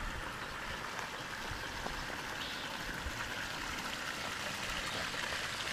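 Water flowing steadily, a soft continuous rushing with a few faint ticks.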